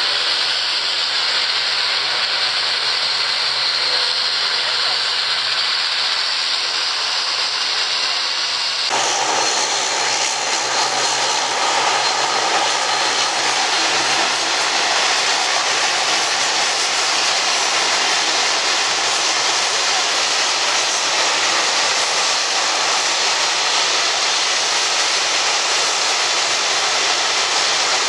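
The two GE90-115B turbofans of a Boeing 777-300ER running at taxi power: a steady jet whine over a hissing rush. About nine seconds in, the sound changes abruptly to a broader, brighter rush.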